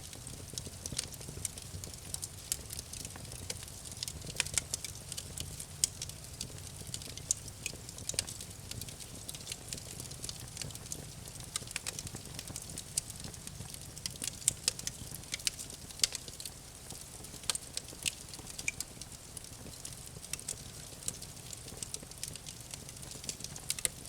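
Campfire crackling: irregular sharp pops and snaps over a low, steady rumble of burning.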